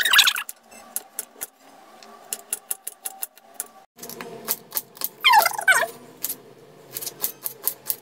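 Kitchen knife chopping on a hard cutting board: quick, irregular sharp clicks as a carrot and then an onion are diced. A louder crunch right at the start, and a short falling squeak about five seconds in.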